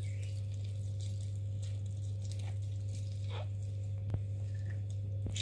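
A cut lime squeezed by hand, giving soft wet squishing and crackling from the rind and juice, with one sharp click about four seconds in. A steady low hum runs underneath.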